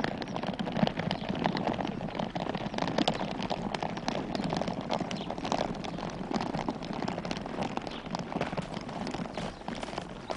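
Wheels of a rolling suitcase dragged over a dirt and gravel track: a dense, steady crackle of small clicks, dying away near the end as it comes to a stop.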